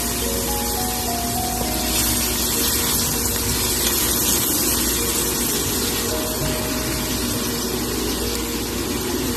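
Chopped onions sizzling in hot oil in a stainless steel frying pan: a steady hiss, a little louder a couple of seconds in, while they are stirred with a spatula. A soft melody of background music plays under it.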